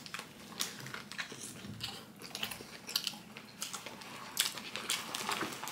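A person biting into and chewing a toasted shawarma wrap: a run of short, irregular crunchy clicks.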